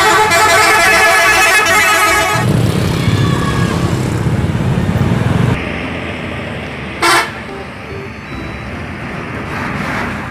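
Tour bus's multi-tone musical horn (an Indonesian 'telolet' horn) playing a quick melody of stepped notes for about two and a half seconds, followed by a low engine rumble. About seven seconds in, a horn gives one short toot.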